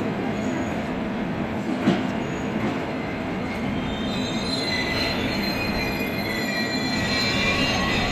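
Train moving slowly through the station with a steady rumble and a single knock about two seconds in; from about halfway, its wheels squeal in several high tones.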